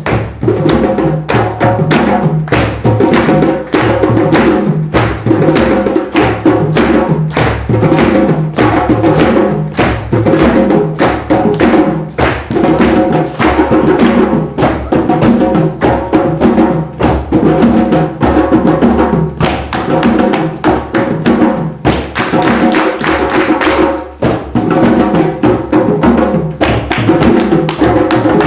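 A drumming group playing together: loud, dense percussion with rapid, evenly driven strikes in a steady rhythm.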